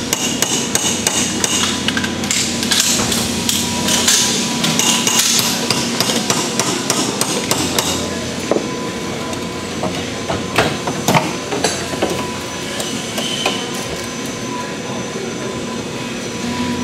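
Small hammer tapping and metal parts clinking as AR-15 lower receivers are assembled on a workbench. The sharp taps come thick and fast in the first half and more scattered later, over a steady hum of shop machinery.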